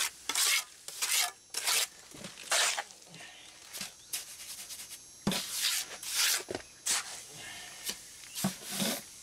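Steel masonry trowel scraping and pressing cement patch mortar into a broken concrete porch edge against a wooden form, in a run of short, irregular scraping strokes.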